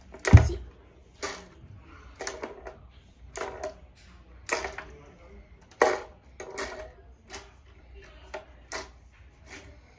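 LEGO table football set in play: plastic rods and kicker figures clacking and the small ball knocked about, a sharp knock roughly once a second. The loudest knock, with a thump, comes just after the start.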